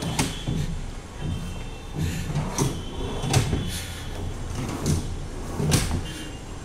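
Several sharp knocks and clicks from a hand handling a white cabinet, over a steady low rumble.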